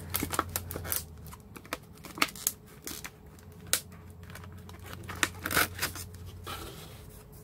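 Clear plastic blister pack crackling and clicking in the hands as it is flexed and pried to get the trading card out, with irregular crackles and a few louder snaps.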